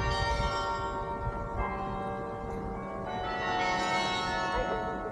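Carillon bells of the Singing Tower ringing: a slow melody of struck notes, about one every second and a half, each ringing on and overlapping the next.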